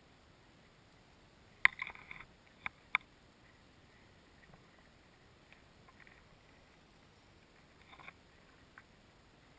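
A few sharp clicks and taps heard underwater over a low steady hiss. A loud click comes about a second and a half in, followed by a quick cluster and two more sharp clicks. A few fainter taps come near the end.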